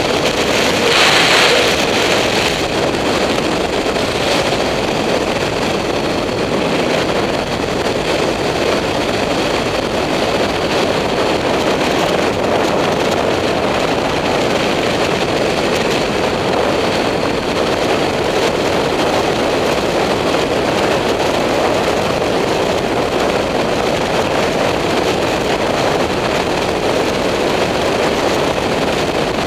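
Steady wind rush over a helmet-mounted camera's microphone at road speed, mixed with the running of a BMW F800GS motorcycle's parallel-twin engine. A brief, louder, brighter rush comes about a second in.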